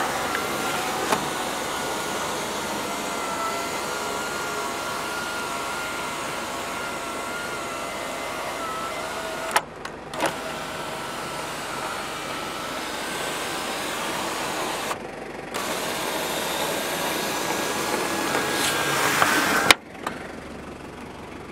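Power sunroof motor of a 1997 Toyota Hiace Regius whining steadily as the roof panel slides open and then shut. It stops briefly twice and halts with a click a couple of seconds before the end.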